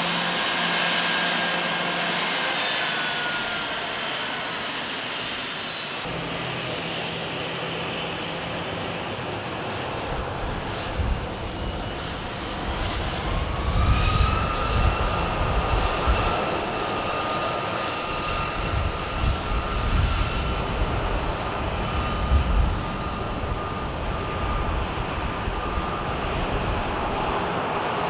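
Jet airliner engines: a departing jet's whine falls in pitch as it climbs away. Then a taxiing Delta Boeing 737-900ER's engines give a steady whine that rises in pitch about halfway through and holds, over an uneven low rumble.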